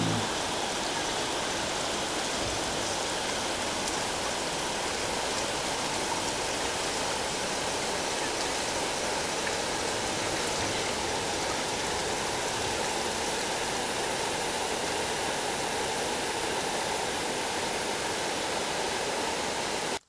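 Steady rushing of falling water from a waterfall, an even unbroken noise that cuts off suddenly at the end.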